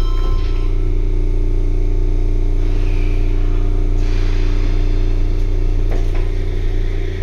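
Sendai Subway Namboku Line 1000N series car interior: a steady electrical hum over a low rumble, with a sharp click about six seconds in.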